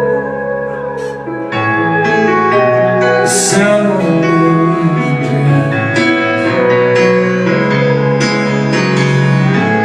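Live band playing the closing instrumental bars of a slow country ballad, with sustained chords.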